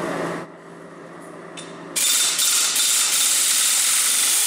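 Impact wrench running on the wheel's lug bolts to take the wheel off, in a short burst that stops about half a second in, then a longer rattling run from about two seconds in.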